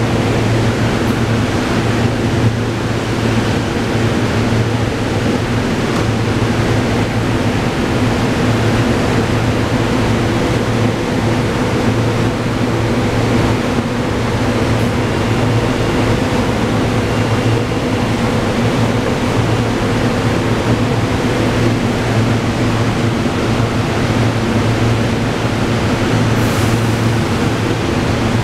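SEPTA Regional Rail electric trains: a steady electrical hum of several low tones over a rumble, as one train pulls out along the platform.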